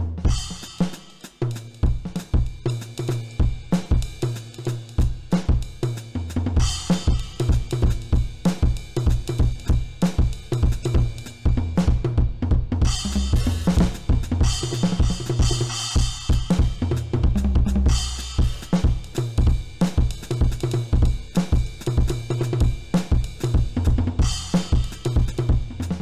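Donner DED-200 Lite electronic drum kit played fast: dense snare, bass drum and hi-hat strokes, with crash cymbal washes coming in four times.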